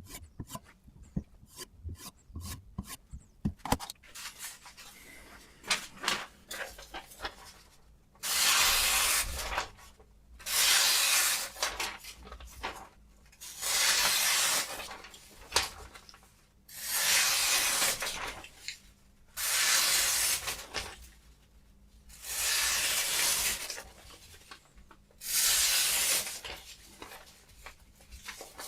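Sharpening stone on a guided angle sharpener drawn along a Xinzuo kitchen knife's edge: a few seconds of light scattered clicks and scrapes, then about eight long, even rasping strokes, one every two and a half seconds or so.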